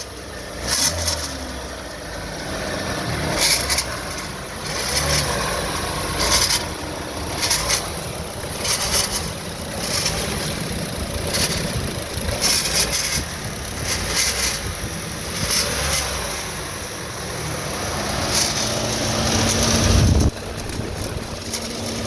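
GM Ecotec engine running with a failed turbocharger making a rattle, the sign of a turbo that has failed. The noise comes in sharp bursts about once a second; near the end it swells and then drops off suddenly, leaving a steadier hum.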